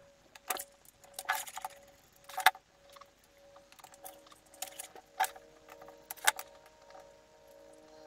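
Scattered light clicks and taps of hands handling a small plaster plate and round fridge magnets on a glass sheet while gluing the magnets on with a hot glue gun. There are about seven or eight separate clicks, and faint steady tones underneath that thicken about halfway through.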